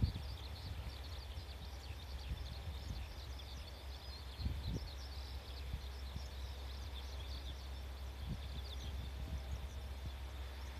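Small birds chirping repeatedly over a steady low outdoor rumble, with a few soft thumps about four and a half seconds in.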